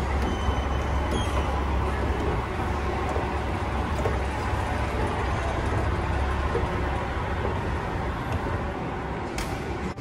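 Escalator running: a steady low mechanical rumble and hum that fades about seven seconds in, as the top of the escalator is reached.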